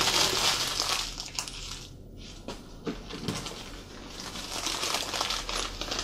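Newspaper packing being crumpled and rustled by hand, loudest in the first second and a half and again near the end, with a few light knocks in between.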